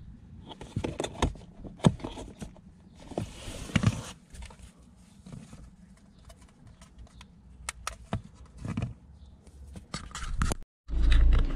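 Scattered clicks, taps and scrapes of hands handling a small aerosol diffuser and plastic parts in a car's passenger footwell, brushing the rubber floor mat. Near the end, after a brief break, a car engine is heard running steadily from inside the cabin, louder than the handling.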